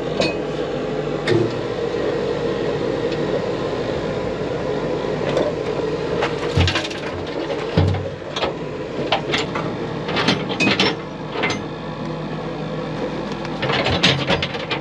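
Metal clinks and knocks from a wrench and tools worked against the fittings of a steel shaft-sinking bucket, coming in scattered clusters with a couple of dull thuds, over a steady machine hum.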